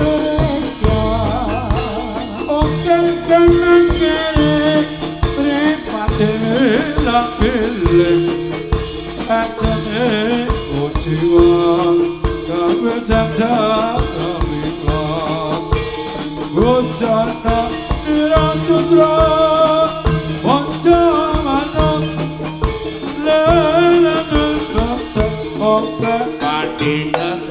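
Live Javanese jaranan ensemble playing a driving, rhythmic piece: drums and pot gongs beating under a singing voice that carries the melody.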